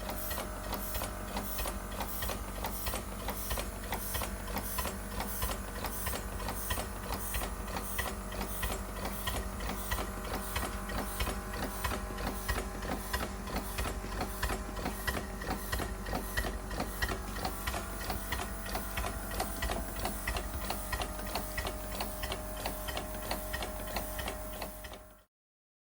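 Miniature live-steam model locomotive engine ticking over, its cylinders beating in a fast, even rhythm with a steady mechanical hum underneath. It cuts off suddenly near the end.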